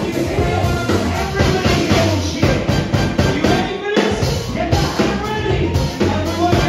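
A rock band playing a song with a singer, drum kit and bass.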